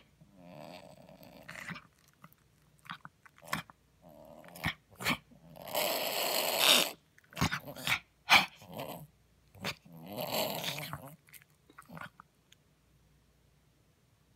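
Poodle snorting: a series of harsh, breathy snorts, the longest and loudest about six seconds in, with short clicks between them, dying away about twelve seconds in.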